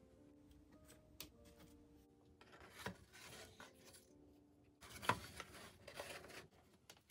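Grey cardboard pieces scraping and rubbing against each other and the wooden shadow box as they are slid into place, in two stretches, the louder one starting about five seconds in.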